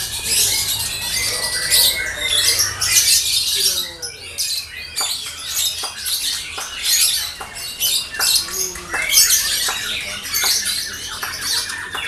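Caged lovebirds chattering: rapid, shrill, high-pitched calls from several birds at once, thickest at the start and again about nine seconds in.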